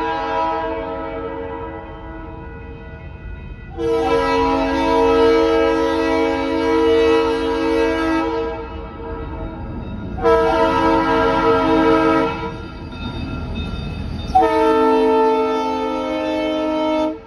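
A diesel freight locomotive's multi-tone air horn sounds the grade-crossing signal. The tail of one blast fades out, then comes a long blast, a short one and a final long one. Underneath, the low rumble of the passing locomotive and train grows.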